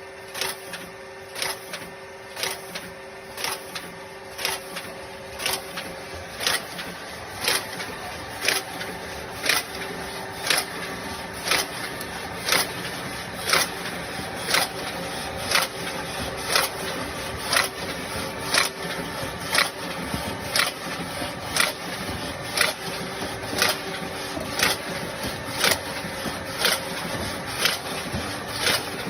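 Automatic tin can welding machine running, with a steady mechanical hum and a sharp clack repeating about once a second.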